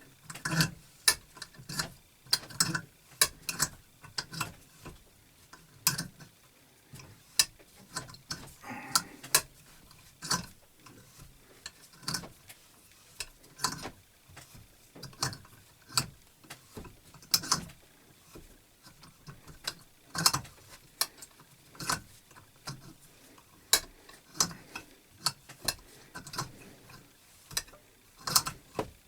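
Irregular sharp clicks and metal taps, one or two a second, from hand tools and small metal parts being worked on a belt grinder.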